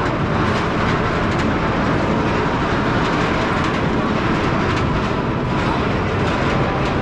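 Roller coaster train running along its track: a steady loud rumble and rush of noise.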